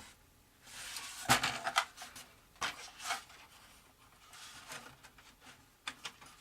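Workbench handling sounds: light rustling broken by several sharp clicks and taps, a strong one about a second and a half in, as a freshly bent steel pushrod wire and the model plane's parts are handled and fitted.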